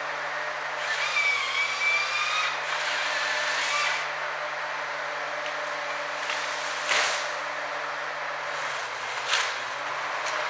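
Ponsse Ergo forestry harvester's diesel engine running steadily, its pitch dipping under load at about one second and again near nine seconds. Between about one and four seconds the crane and harvester head add a hissing whine with gliding tones, and sharp cracks come at about seven and nine seconds.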